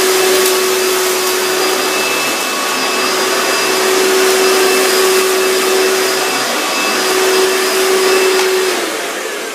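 Vacuum cleaner running loud and steady, a motor whine with a strong hum over a wide rush of airflow noise; the hum fades and the sound eases off near the end.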